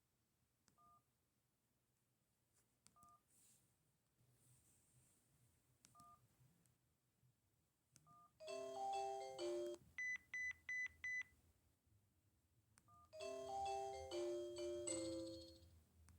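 Samsung SGH-A707 phone scrolling through its ringtone list: short two-tone keypad beeps every two or three seconds. Two polyphonic ringtone previews play, the first ending in five quick high beeps, and each is cut off by the next key beep.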